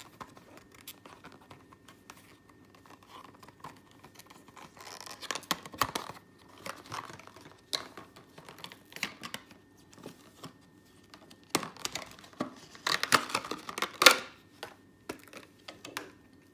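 Plastic retail packaging being torn open and crinkled by hand, with scattered clicks and rustles; the loudest burst of crinkling comes about 13 to 14 seconds in.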